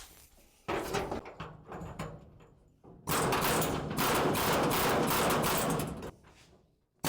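Pneumatic air hammer chiselling rusty pickup-cab sheet metal: short broken bursts and knocks about a second in, then one long continuous run of rapid hammering from about three seconds in until it stops near six seconds.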